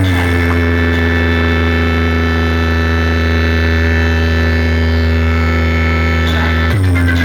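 Loud, steady low bass drone with a stack of overtones, held at one pitch through the sound system's speakers, breaking off near the end as the music comes back in.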